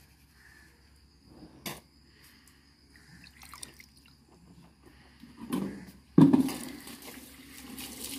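Water dripping and splashing, with a few light knocks, then water starting to run suddenly and loudly about six seconds in, as from a tap.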